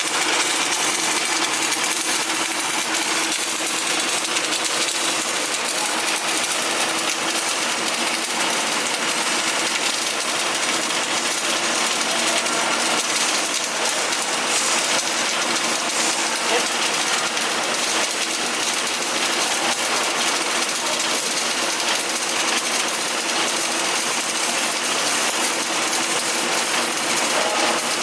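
Electric arc welding: the arc crackles and sizzles steadily without a break, over a faint steady hum.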